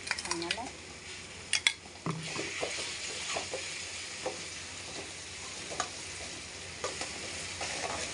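Chopped onions and chilli paste sizzling in a metal pan while a steel spoon stirs them, with scrapes and clinks of the spoon against the pan every second or so. The sizzle grows louder about two seconds in.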